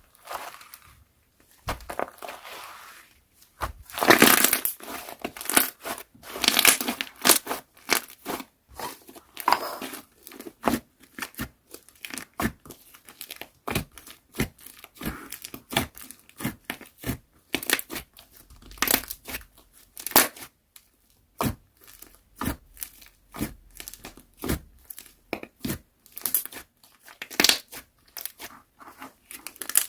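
Slime being squeezed and stretched by hand, giving a dense run of sharp crackling pops and clicks, with longer crackling stretches about four and seven seconds in.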